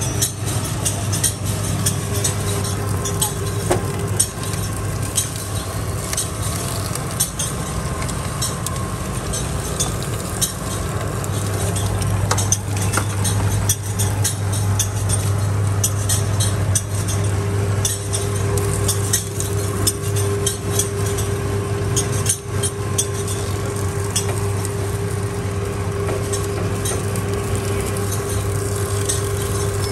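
Sugarcane juice machine running with a steady hum, its grooved steel rollers crushing sugarcane stalks with a crackle of small irregular snaps.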